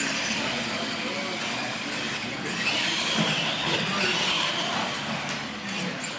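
Radio-controlled monster trucks racing, the whine of their electric motors and gearing rising in pitch and then falling away through the middle of the run.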